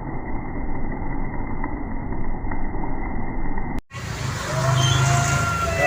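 Road vehicle noise: a dense, muffled rumble that changes abruptly just before four seconds in. After that, a steady low engine hum joins a vehicle's pitched whine that slowly rises in pitch.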